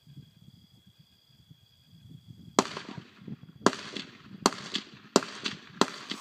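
Five rifle shots from a custom AR-15 in 5.56, fired semi-automatically in quick succession. They begin about two and a half seconds in and come about a second apart or less, the last ones closest together.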